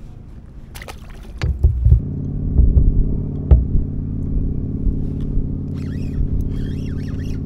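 A few knocks and clunks, then about two seconds in a loud, steady motor drone sets in and holds, with one sharp click partway through.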